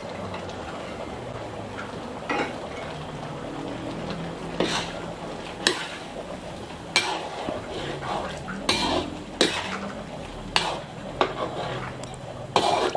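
Metal ladle stirring a thick chicken-and-vegetable cream stew in a steel wok. It scrapes and knocks against the pan at irregular moments, about ten times.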